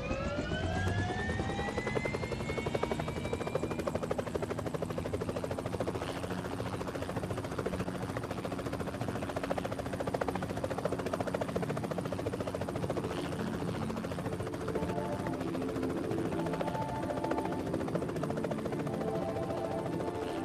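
Helicopter starting up: a turbine whine rises and levels off over the first few seconds, then the rotor beats steadily. Music comes in under it about two-thirds of the way through.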